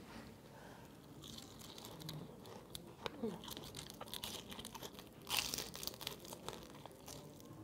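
Crisp crunching and crackling of battered fried shrimp being bitten and chewed, a run of small sharp crackles with a louder crunch a little after five seconds in.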